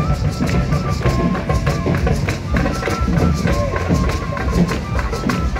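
Dance music with a quick, steady percussion beat and a melody line, played loud over a parade float's sound system.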